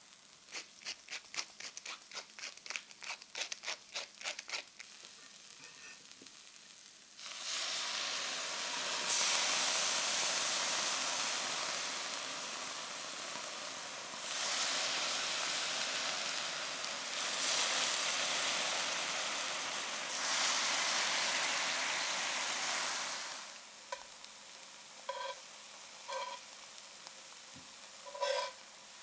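A hand grinder is twisted in quick, even strokes, grinding rock salt over the pan. Then teriyaki sauce is spooned into the hot cast-iron pan and sizzles loudly in repeated swells for about sixteen seconds before it dies down. Near the end, metal tongs clink against the pan a few times as the aubergine slices are turned.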